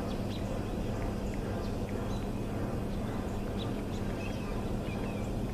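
Birds chirping in short scattered calls over a steady low rumble with a constant hum.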